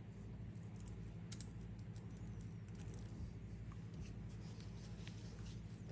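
Faint, scattered clicks and light taps from a wristwatch being handled, over a steady low hum.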